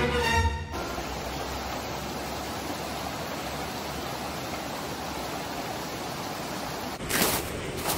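A shallow, rocky mountain creek running over stones: a steady, even hiss of flowing water. About seven seconds in, and again near the end, two louder bursts of noise cut in over it.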